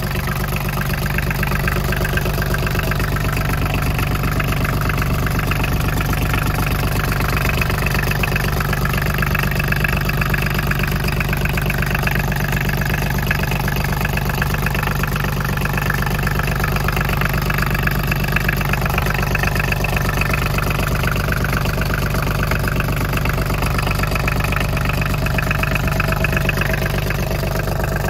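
Small inboard marine diesel engine idling steadily, an even rhythmic running sound that holds the same pace throughout.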